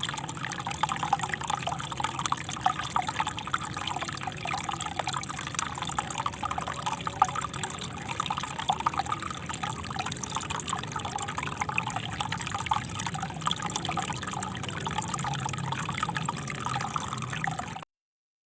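Small river flowing, a steady, bubbling rush of water that cuts off suddenly near the end.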